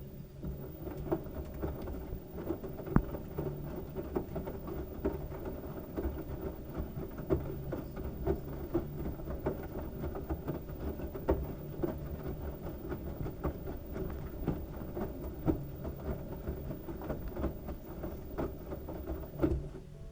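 LG washing machine tumbling a load of wet towels: water sloshing and pattering, with frequent small thuds. The drum motor's low hum comes in for stretches of a few seconds and drops out in between.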